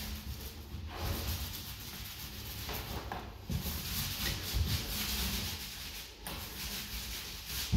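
Paint roller on an extension pole rolling wet paint onto a wall: a continuous rubbing hiss in long strokes, with brief breaks a few times as the stroke reverses.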